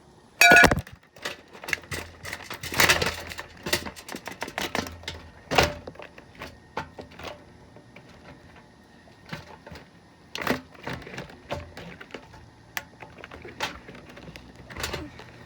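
Lasko plastic box fan being smashed apart: irregular hard blows with plastic cracking and snapping, the hardest blow about half a second in and scattered smaller knocks and rattles after it.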